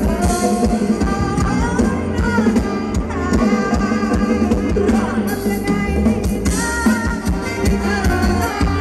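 Live band playing Thai ramwong dance music: a steady drum-kit beat with bass under a bending melody line.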